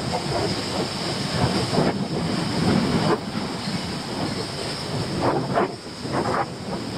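Wind buffeting the microphone: a rumbling hiss that swells and dips in uneven gusts.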